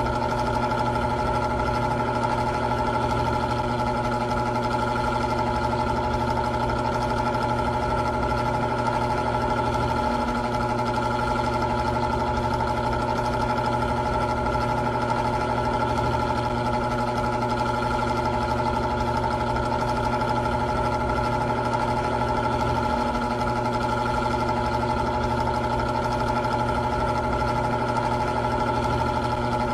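Old electric fan running steadily: a constant motor hum with a high whine over the rush of air from the blades.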